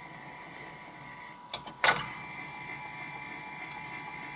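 Telefunken 504 turntable motor running with a steady low whine. About one and a half seconds in come two sharp mechanical clicks, a third of a second apart.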